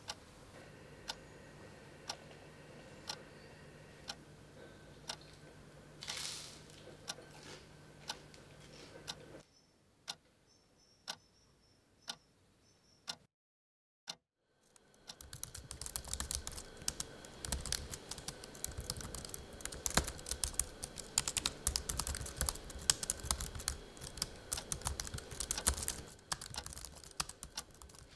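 Single ticks about a second apart, then after a short silence fast, irregular clicking of typing on a computer keyboard.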